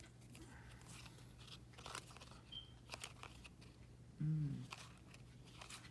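Card booster pack wrappers crinkling and cards being handled, in scattered short crackles. About four seconds in comes a brief, louder sound of a person's voice.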